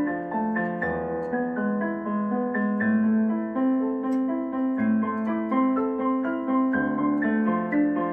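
Piano playing a steady, flowing melody of single notes, a few a second, over bass notes that change about every two seconds.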